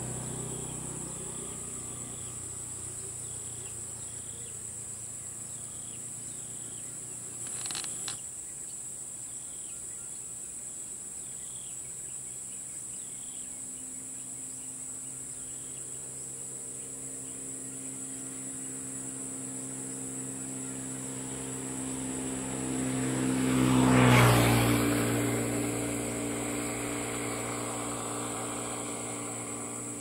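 A steady, high-pitched drone of evening insects such as cicadas or crickets. A motor vehicle's engine comes closer, is loudest about 24 seconds in as it passes, then fades away, and there is a brief knock about 8 seconds in.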